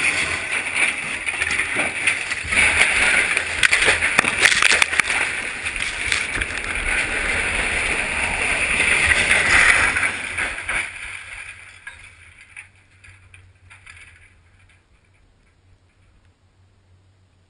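Steel lattice radio tower collapsing onto frozen ground after demolition: a long, loud crash of falling and twisting steel with many sharp metal impacts. It dies away from about ten seconds in and has faded out a few seconds later.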